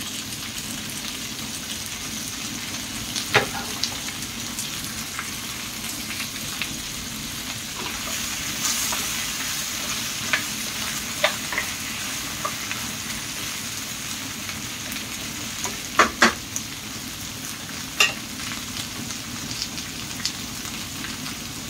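Mixed vegetables (pumpkin, green beans, bitter melon and okra) sizzling in hot oil in a pan while being stirred, with a few sharp knocks of a utensil against the pan, two of them close together past the middle.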